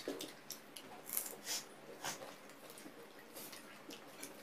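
Eating sounds by hand: chewing and lip-smacking, with fingers mixing rice on plates, heard as a string of short wet clicks and smacks, the strongest about one and two seconds in.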